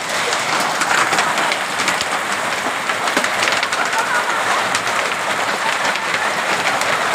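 Hailstorm with heavy rain: a loud, steady rush of rain laced with many sharp ticks of hailstones striking the ground and plants.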